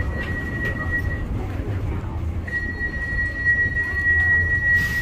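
A steady high-pitched whine over a low rumble, dropping out for about a second near the start and then coming back.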